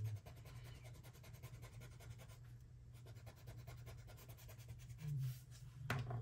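Colored pencil scratching across textured watercolor paper in many quick, light strokes as color is layered on. About five seconds in comes a short low hum, then a click just before the end.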